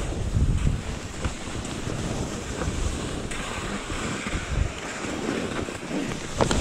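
Skis fitted with climbing skins sliding over packed snow on an uphill skin track, with scattered crunching pole plants. Wind buffets the microphone with a low rumble.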